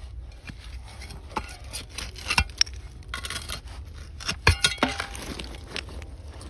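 Hand digging tool scraping and knocking through dump fill around buried glass bottles, with scattered clinks of glass. The sharpest knock comes about four and a half seconds in, followed by a short ring.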